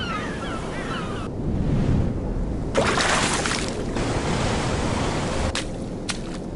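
Ocean surf washing onto a beach, a steady rush of noise with a louder surge about three seconds in. High chirping calls sound over it in the first second and cut off abruptly, and two sharp clicks come near the end.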